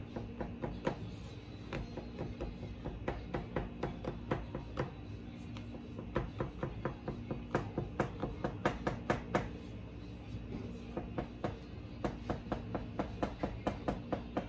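Knife cutting through cake in short up-and-down strokes, its tip tapping on the board underneath in quick runs of several taps a second, with brief pauses between runs.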